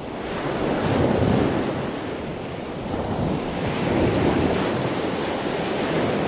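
Choppy waves washing onto a shore in strong wind, with wind buffeting the microphone. The surf swells about a second in and again around four seconds in.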